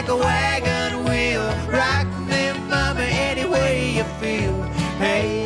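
Background music: a country-bluegrass song with acoustic guitar and banjo over a steady beat, with a melody line sliding in pitch between the sung lines.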